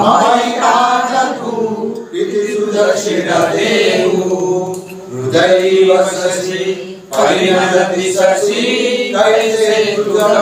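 A group of worshippers chanting a devotional song together in unison, sung in phrases with short breaks between them.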